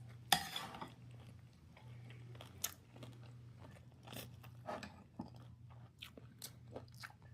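A person chewing and biting food close to the microphone: a loud crunching bite about a third of a second in, then scattered crunches and wet clicks of chewing.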